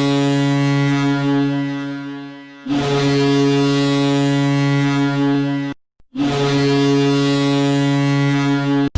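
Colorado Eagles' retro hockey goal horn: a deep, steady air horn sounding three long blasts of about three seconds each. The first fades out just as the second starts, and a brief silence comes before the third.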